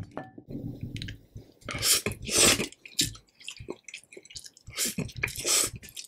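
Close-miked eating sounds: a person slurping and chewing stir-fried instant noodles (Indomie Mi Goreng), with wet smacking and clicking mouth noises throughout. There are two long, loud slurps, one about two seconds in and one about five seconds in.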